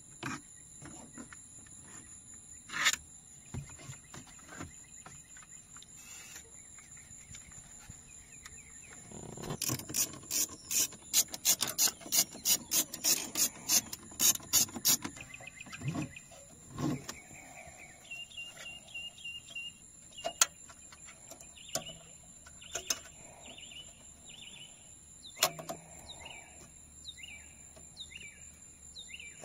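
Plastic dash trim pried loose with a pry tool and the factory stereo unfastened and unplugged: scattered clicks and snaps, with a fast run of loud clicks about ten to fifteen seconds in. Birds chirp in the background in the last third.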